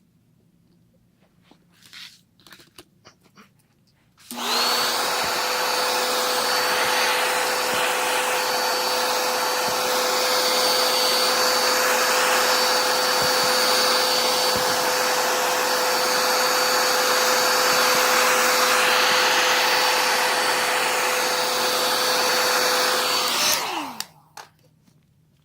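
Remington 1875-watt hair dryer, used as the repair heat source, switched on about four seconds in and running steadily with a constant whine for about twenty seconds. It is then switched off, its pitch falling as the motor spins down.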